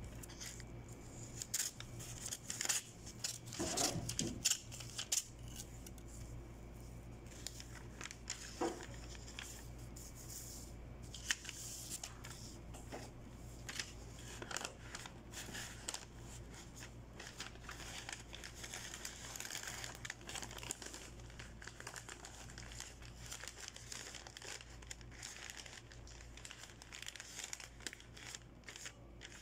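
Bouquet wrapping paper crinkling as it is handled and folded around the flowers, in irregular bursts that are busiest in the first few seconds.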